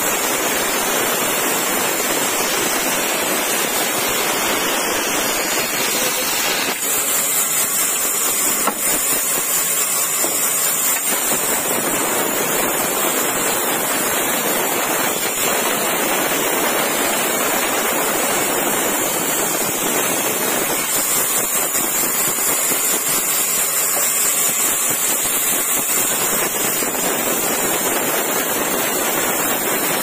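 Band saw running and ripping lengthwise through an old weathered wooden beam, a steady sawing noise.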